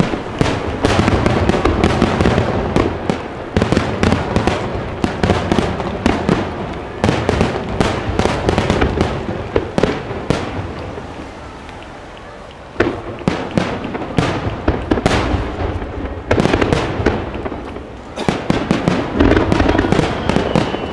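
Fireworks display: a rapid barrage of aerial shells bursting, many sharp bangs in quick succession over a low rumble. The bangs ease for a couple of seconds past the middle, then start again with a sharp bang.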